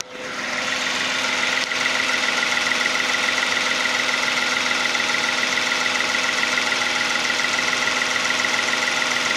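Hyundai Genesis DH 3.3-litre V6 engine idling steadily with the bonnet open, running very quietly.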